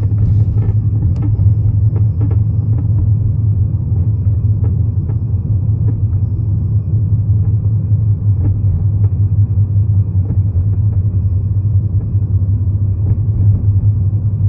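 A BMW's steady low rumble, with short faint creaks or clicks at irregular moments over it.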